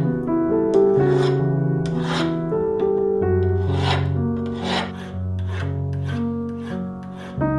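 Metal files rasping in back-and-forth strokes across twisted metal wire, about one stroke a second. Background music of slow, sustained chords plays underneath.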